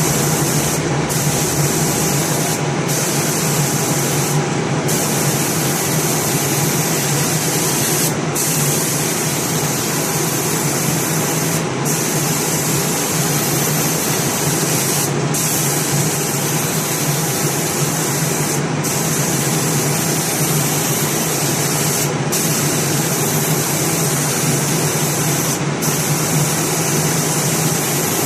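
Automatic door spray-painting machine running: a steady, loud spray hiss over a low machine hum, with the hiss briefly breaking in its upper range about every three and a half seconds.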